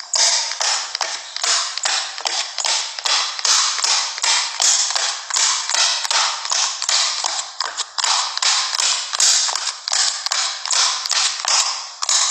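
A fast, steady series of tapping sounds, about three a second.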